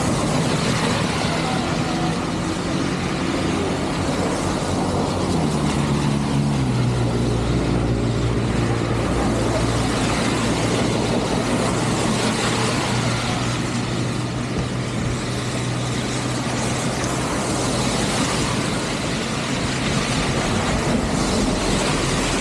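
Vehicle engine running on the move, with steady wind and road noise. The engine note shifts and drops around six seconds in, then holds steady.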